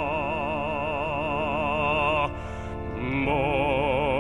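Pansori singer's voice drawing out a long sung call of "Moses" with a wide, slow vibrato, over a low sustained instrumental backing. The note breaks off about two seconds in, and a second long vibrato note begins about a second later.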